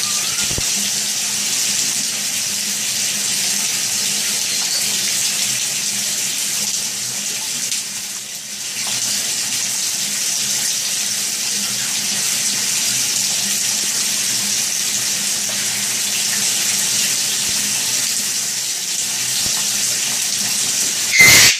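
Shower spray running steadily onto a tiled wall and a wet parrot, a constant hiss of water. Near the end comes a brief loud burst, after which the water sound drops.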